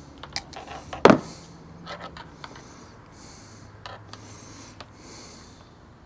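Small clicks and taps of a stripped wire and butt connector being handled, with one louder knock about a second in, and breathing close to a clip-on microphone.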